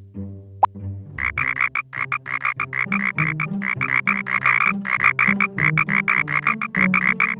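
Cartoon frog croaks repeating in a fast, even rhythm, about five a second, over a bouncy music bass line. They start about a second in.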